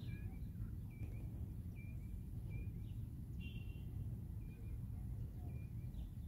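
A songbird repeating a short chirp with a small upward hook, one every second or less, with one different, fuller call about halfway through. Under it runs a steady low rumble of outdoor background noise.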